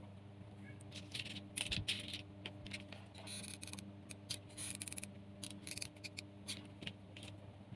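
Faint handling sounds from bamboo skewers and jute-wrapped craft pieces being held and glued with a hot glue gun: small clicks and taps with bursts of scratchy rustling, busiest in the middle, over a steady low hum.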